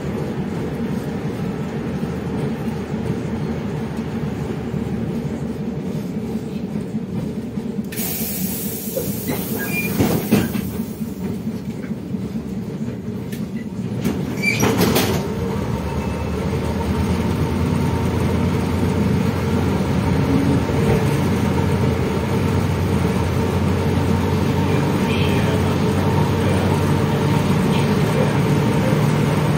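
LiAZ-677M city bus's ZIL V8 petrol engine running steadily as the bus drives, heard from inside the front of the cabin. About eight seconds in there is a brief hiss, a couple of knocks follow near the middle, and from about fourteen seconds on the engine sounds louder.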